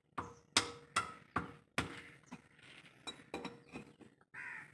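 Steel adjustable wrench clinking and knocking against the casing bolts of an electric water pump while loosening stubborn bolts: about five sharp metallic knocks in quick succession, then lighter clicks.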